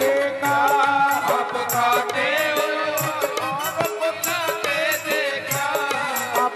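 Instrumental break in a Hindi devotional bhajan: a winding melody played over a steady, fast beat of shaken rattle-type percussion.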